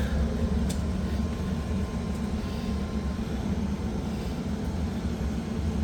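Smoker running with a steady low hum while it heats up toward cooking temperature.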